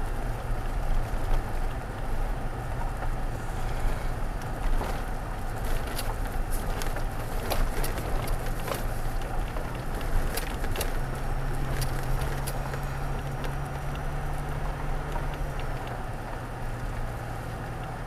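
Toyota Tacoma pickup crawling along a rough dirt road, heard from inside the cab: a steady low engine hum with gravel crunching under the tyres and small stones clicking, most often in the middle of the stretch. The engine note strengthens about eleven seconds in and eases off again a few seconds later.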